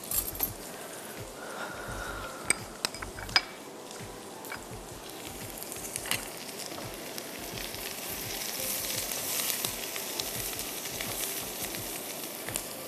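Sliced onions sizzling steadily in hot oil in a nonstick pan as they are browned, with a few sharp clicks of a spatula against the pan as they are stirred.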